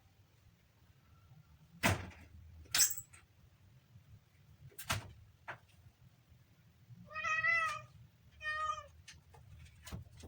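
Kitten meowing twice, a long wavering meow followed by a shorter one. A few sharp knocks, as loud as the meows, come in the first half.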